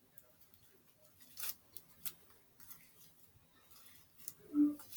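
Faint scattered clicks and rustles of small objects being handled, with one short low hum about four and a half seconds in.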